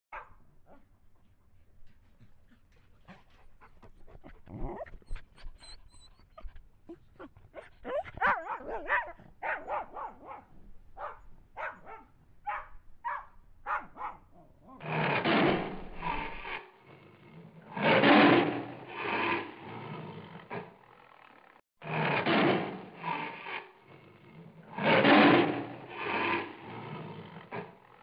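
Golden retriever puppy giving short faint yips. From about halfway come louder animal calls, each about a second long and in groups.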